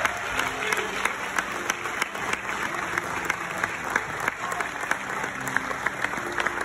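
Audience applauding: a dense, steady patter of many people's claps, with a few voices in the crowd.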